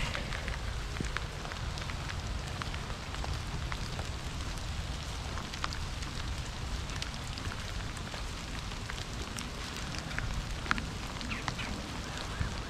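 Light rain falling, many small drops tapping irregularly over a steady low rumble.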